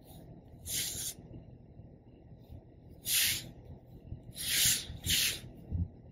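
Four short scratchy swishes of a fineliner pen drawing lines on paper and the sheet sliding on a wooden desk. The first comes about half a second in and the other three close together past the middle, with a soft thump near the end.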